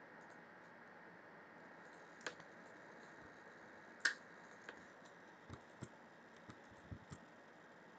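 Faint clicks of a computer mouse and keyboard, about eight scattered presses with the loudest about four seconds in, over a steady low hiss.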